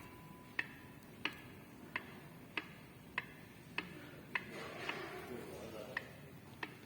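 New front differential of a Lada Niva 214 being rocked back and forth by its input shaft. The gear backlash takes up with a light click each way, about every 0.6 s: a small play of about 3–4 degrees.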